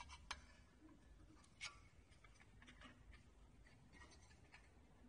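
Near silence with a few faint clicks and taps as a heat sealer's metal base plate is handled and fitted back onto the sealing bar; the clearest click comes about a second and a half in.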